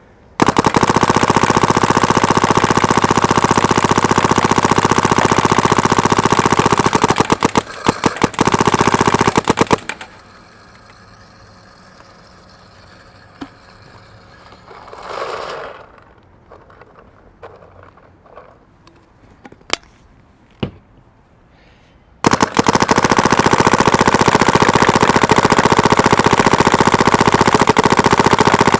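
SP Shocker XLS electronic paintball marker firing long, rapid strings of shots on compressed air. The firing breaks off about ten seconds in for a quieter stretch of a few scattered clicks and a brief rushing sound, then resumes rapid firing about two-thirds of the way through.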